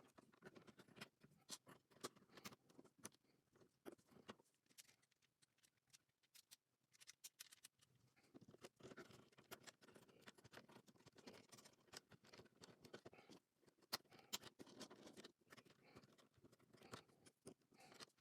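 LEGO bricks being handled and pressed together: faint, irregular plastic clicks and taps with soft rustling between them.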